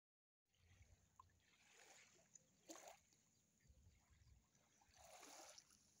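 Very faint small waves lapping at the shore, with soft swishes about a third of the way in and near the end, and low wind rumble on the microphone now and then.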